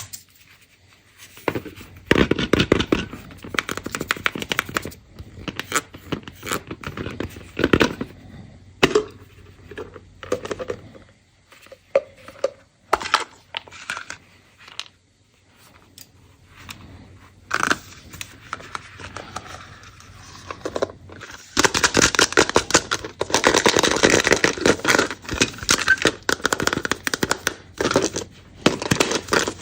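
Foil candy wrappers crinkled and torn open by hand, in irregular crackles and rips, densest and loudest over the last eight seconds.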